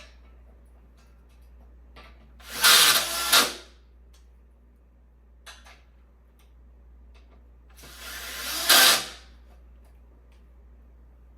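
Power drill driving screws into a metal bed frame's leg joints, in two runs of about a second each, a few seconds apart, with a few light clicks of parts being handled between them.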